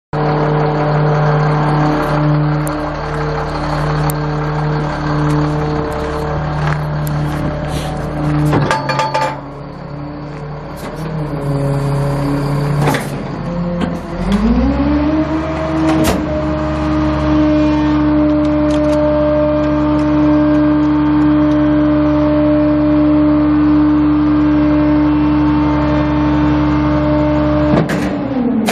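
Caterpillar C7 inline-six diesel engine of a 2005 Sterling L7500 refuse truck, idling steadily, then after a quieter stretch with a few sharp clanks it climbs smoothly to a higher speed and holds there steadily. Near the end it dips and climbs again.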